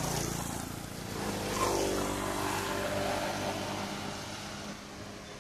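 Engine of a passing motor vehicle, swelling a second or two in and then fading away.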